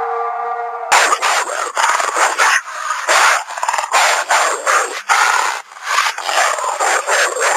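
Dire wolf sound effect: a held, pitched cry cuts off about a second in, and then come harsh, rasping dog-like snarls and growls in rapid bursts.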